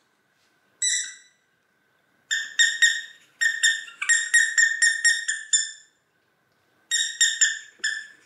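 Squeaky toy squeezed over and over, giving one short high squeak about a second in, then quick runs of identical squeaks, several a second, with a pause before a last run near the end. A faint steady high tone lies underneath.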